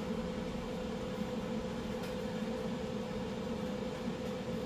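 A steady machine hum with one steady tone and a low drone beneath it, like a running household appliance or fan.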